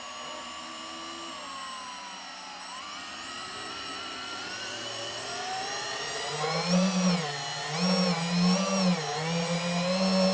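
DJI FPV quadcopter's motors and propellers whining. The pitch glides up and down with throttle, getting louder, with strong rises and dips about two-thirds of the way in as it is throttled up.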